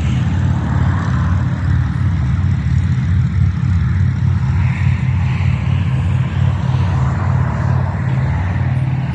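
Engine idling: a steady, loud low hum that does not change.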